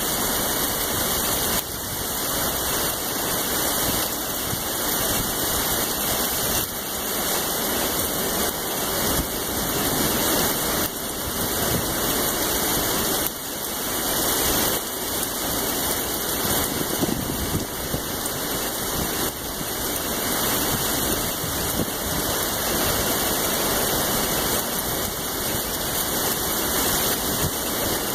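Heavy rain pouring during a severe storm: a steady, dense hiss that swells and dips slightly.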